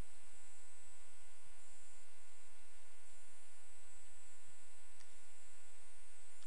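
Steady electrical hum and hiss made of many unchanging tones, with a faint low blip about every three seconds. It sounds like mains hum or interference in the audio feed rather than any sound from the game.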